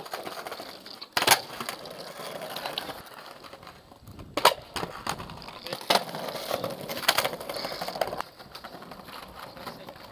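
Skateboard wheels rolling over paving-stone tiles, broken by several sharp wooden clacks of the board: tail pops and landings of flatground tricks. The loudest clacks come about a second in and at about four and a half and six seconds.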